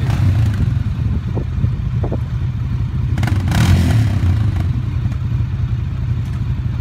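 ATV engine idling with a steady low, pulsing rumble, briefly louder with some clatter about three seconds in.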